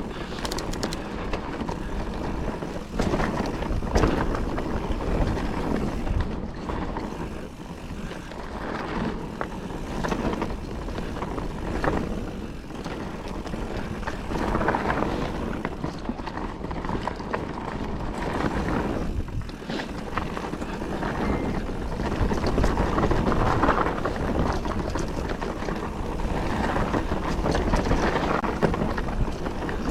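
Calibre Triple B mountain bike ridden along a dry, loose dirt trail: tyres rolling and skittering over the surface, with constant rattles and knocks from the bike, and wind buffeting the microphone.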